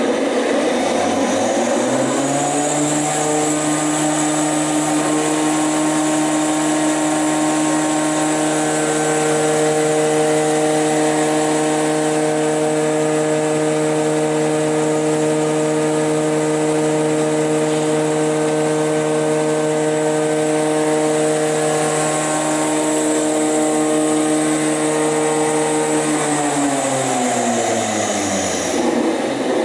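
WOLF AD 510S jointer-planer's motor and cutterhead starting up, the pitch rising over the first few seconds, then running steadily with an even hum. Near the end it winds down within a few seconds as the motor brake stops the cutterhead.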